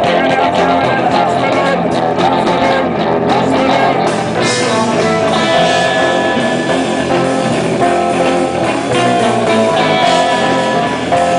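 Live rock band playing loudly: amplified electric guitars over a drum kit.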